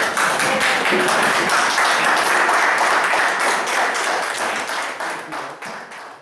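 Crowd applauding, the clapping fading out near the end.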